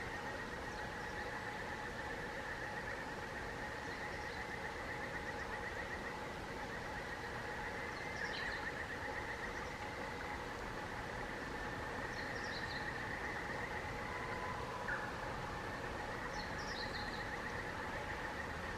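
Steady outdoor ambience by a stream: an even hiss and a constant high trilling drone, with short high bird chirps about three times.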